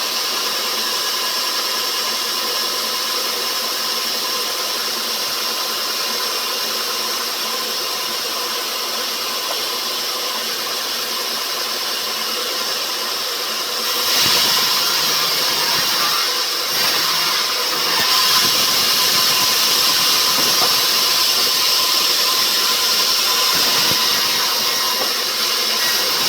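Rubber-wood sawmill machinery running with a steady mechanical hum and whine, becoming louder and fuller about halfway through.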